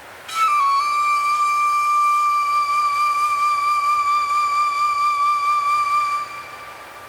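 Ambient music: a single long high wind-instrument note, with a slight step down in pitch at its start, held for about six seconds and then fading, over a steady wind-like hiss.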